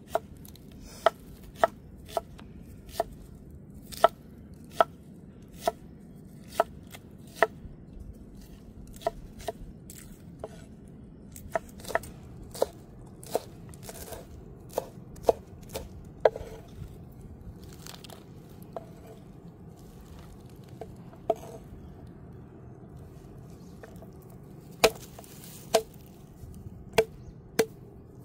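A knife chopping vegetables on a wooden board, each stroke a sharp knock of the blade on the wood, mostly about one a second. The strokes thin out for several seconds in the middle, then come faster near the end.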